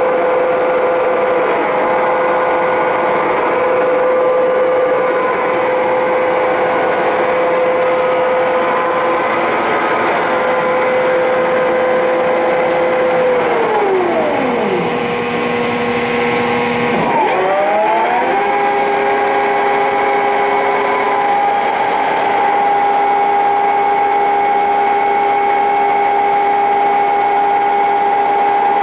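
Clausing Boravia SUS63 engine lathe running under power with a steady whine. About halfway through, the whine falls in pitch as the spindle winds down, then climbs back up and settles at a higher steady pitch: a change of spindle speed.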